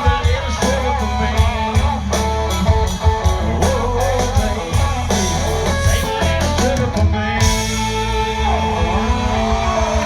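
Live country-rock band playing, with electric guitars over a drum beat. About seven seconds in the drums stop and the guitars ring on with sustained notes and a bent note.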